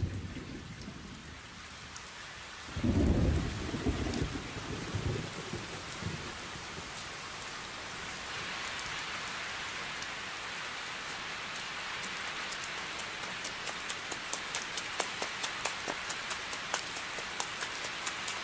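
Steady rain with a low rumble of thunder about three seconds in. The rain grows heavier from about eight seconds, with sharp drips pattering through the last few seconds.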